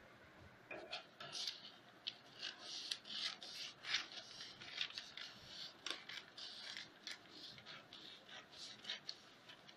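Scissors snipping through pattern paper, in a run of short crisp cuts about three a second, starting under a second in.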